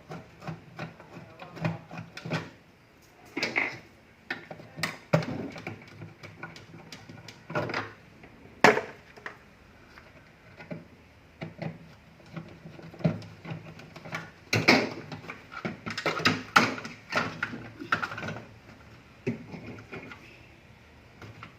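Irregular clicks, knocks and rattles of hands and tools working on a refrigerator under repair, with a sharper knock about nine seconds in and a busier run of knocks in the last third.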